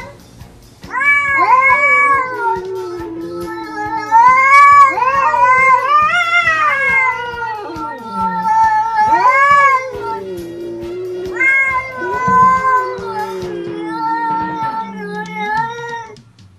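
An orange-and-white domestic cat yowling and meowing, starting about a second in. It gives a long run of drawn-out calls that waver up and down in pitch, with short pauses between them, sounding almost like words.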